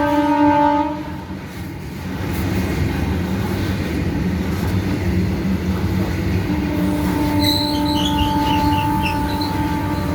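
WAG-9HC electric locomotive's horn sounds a steady tone that cuts off about a second in. The heavy goods train keeps rumbling past, and the horn sounds again for several seconds in the second half.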